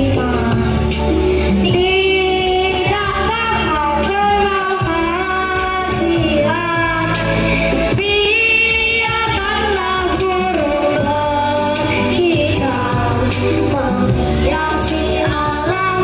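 A group of children singing a song together over an amplified musical backing track.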